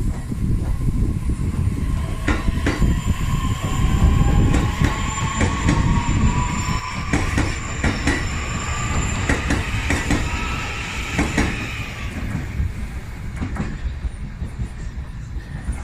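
A 209-series electric commuter train pulling away along the platform: a heavy low rumble, wheels clicking over rail joints, and a motor whine that rises steadily in pitch as it speeds up. It fades over the last few seconds as the train clears the station.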